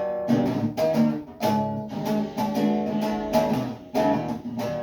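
Acoustic guitar strummed in a steady rhythm, about two strokes a second, with the chords ringing between strokes. It plays the instrumental intro before the vocal comes in.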